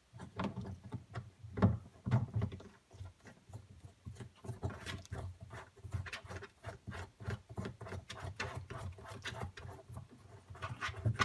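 Hands threading a small plastic nut onto a plastic float valve stem through the wall of a plastic tub: a run of small clicks and plastic rubbing, with one louder knock about a second and a half in.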